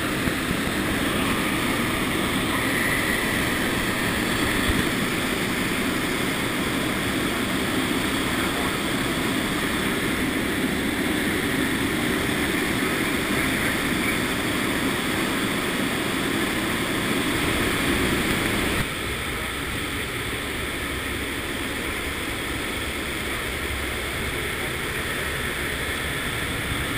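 Steady noise of a C-130 Hercules's turboprop engines in flight, with air rushing into the cargo hold through the open rear ramp. About two-thirds of the way through it drops abruptly to a slightly quieter, duller drone.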